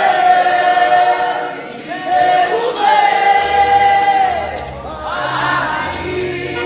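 Group of worship singers singing together in long held notes, two sustained phrases followed by a rising line. Low bass notes from the band come in about halfway through.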